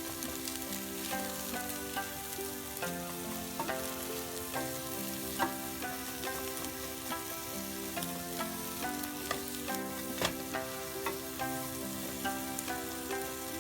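Pork offal and vegetables sizzling as they are stir-fried in oil, with scattered clicks of the spatula against the pan. Background music with a melody plays over it throughout.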